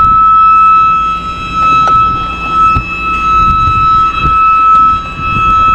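Navigation lock's warning alarm sounding one steady, loud, high-pitched tone without a break, the signal that the lock is about to operate.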